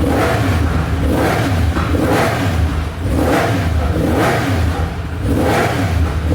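Yamaha MT-10 SP's crossplane inline-four engine being revved repeatedly through its exhaust, in quick blips about once a second.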